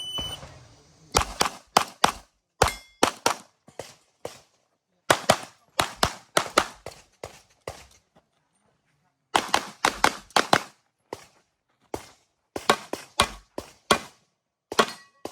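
A short electronic shot-timer start beep, then about a second later pistol shots fired in quick pairs and fast strings, with pauses of a second or two between strings, as an IPSC handgun stage is shot.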